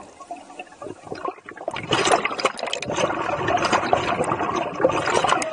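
Underwater bubbling and water churning around a scuba diver just below the surface: scattered crackles for the first second and a half or so, then a dense, steady rush of bubbles.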